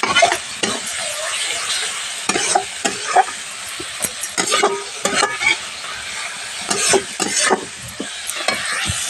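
Onions and masala sizzling in oil in a metal kadhai while a metal spatula stirs them, scraping and knocking against the pan at irregular intervals: the spice mix frying with the onions.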